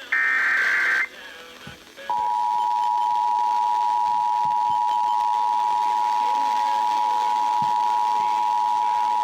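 Emergency Alert System test on broadcast radio: the last burst of the SAME digital header, a one-second burst of warbling data tones, then a short pause. About two seconds in, the EAS two-tone attention signal starts: a steady dual tone of 853 and 960 Hz sounding together.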